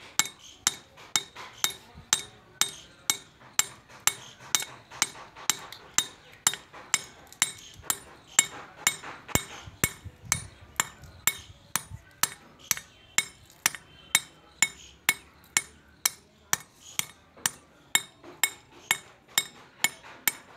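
Pointed steel pick-hammer striking a sil batta grinding stone in steady strokes, about two sharp clinks a second, pecking fresh grooves into the stone face to roughen it for grinding.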